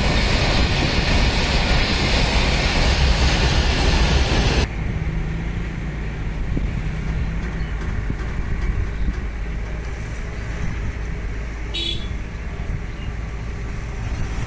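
Freight train of covered goods wagons rumbling past on the rails, a loud wheel-and-track noise that drops off suddenly about four and a half seconds in. After it comes a steadier, quieter background of road traffic, with one short high beep near the end.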